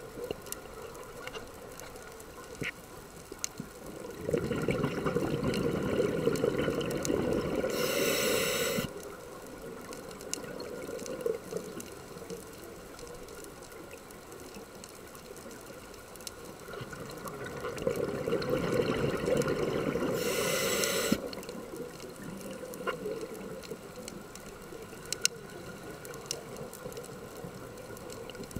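Scuba regulator breathing underwater: twice, a bubbling exhalation rumbles for about four seconds and ends in a short hiss. Faint scattered clicks sound in between.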